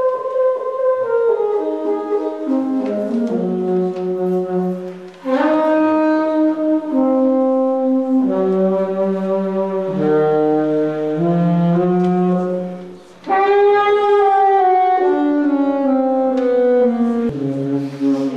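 Solo saxophone improvising in slow phrases of held notes that mostly step downward in pitch, with two short breaks for breath, about five and thirteen seconds in.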